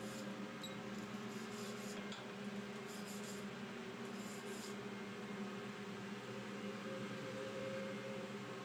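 Steady machinery hum of a ship's engine room heard from inside an engine's scavenge space, with a few faint scratching strokes of a metal hand scraper on the piston skirt in the first half.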